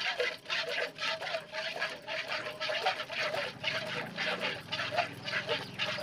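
Cow being milked by hand into a steel bucket: milk squirts hissing into the pail in a steady rhythm, about three squirts a second.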